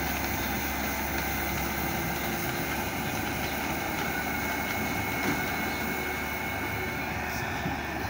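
New Holland 8050 combine harvester running steadily while unloading wheat, its engine and unloading auger going and grain pouring from the spout onto a pile.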